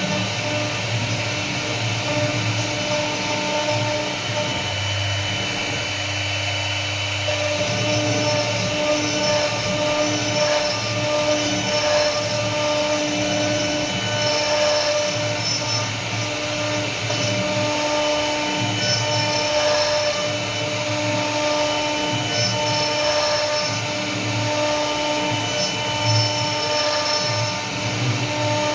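CNC wood router running a carving program: the spindle's steady whine with a low hum, its tones shifting in pitch and strength every few seconds as the bit moves through the wood.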